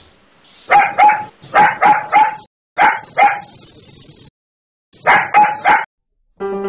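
A dog barking: about ten short barks in bursts of two and three, with a pause of about two seconds before the last burst. Piano music starts near the end.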